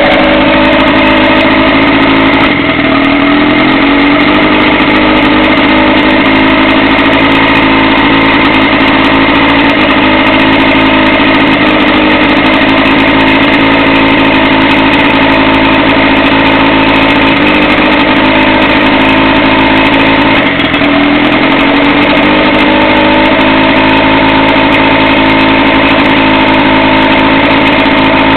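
Boat motor running steadily and loudly, making a sound the owner cannot identify. Its speed sags and climbs back twice, about two and a half seconds in and again near twenty seconds.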